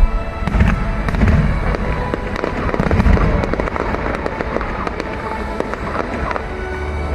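Fireworks display: shells bursting with several deep booms, the loudest about three seconds in, amid sharp crackling and popping, over background music.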